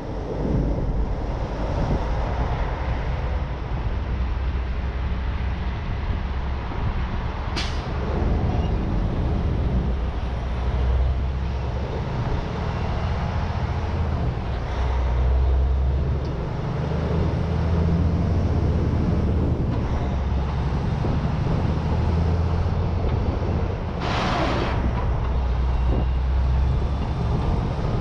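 Heavy truck driving through city streets: a steady low diesel engine drone with road and wind noise. There is a brief sharp sound about eight seconds in and a hiss lasting about a second near the end, typical of truck air brakes.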